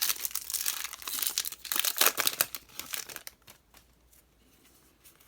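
A Yu-Gi-Oh! trading-card booster pack's foil wrapper crinkling and tearing as it is opened, a dense run of crackles that stops about three and a half seconds in.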